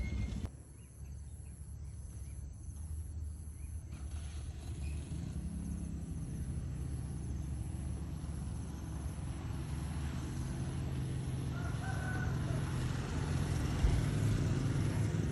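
Outdoor background of a steady low rumble, with a rooster crowing a few times, most clearly about twelve seconds in.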